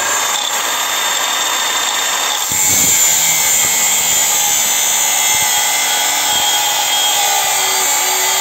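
Parkside Performance PWSAP 40 Li A1 cordless 230 mm angle grinder with a 1.9 mm cutting disc running at full speed; about two and a half seconds in the disc bites into a steel bar and cuts under load, the grinding steady and louder from then on.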